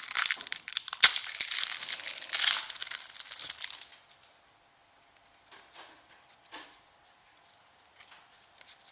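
A trading-card pack's plastic wrapper being torn open and crinkled for about four seconds, then quieter, faint rustles and clicks as the cards are handled.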